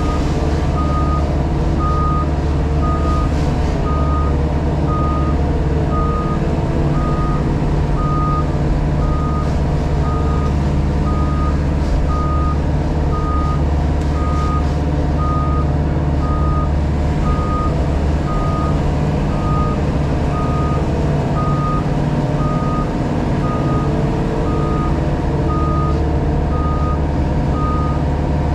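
Heavy machine's diesel engine running steadily under a reversing alarm beeping at an even pace, about once a second.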